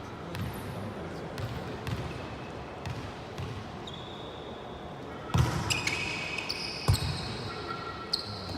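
Men's indoor volleyball rally: the ball is struck and hits the gym floor with sharp smacks, two loud ones about five and a half and seven seconds in. Short high squeaks, typical of sneakers on the court, come between them.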